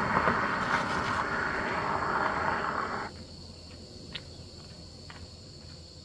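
A steady rushing noise that fades slowly and then stops abruptly about three seconds in. It leaves a quieter background of a steady high insect drone with a few faint ticks.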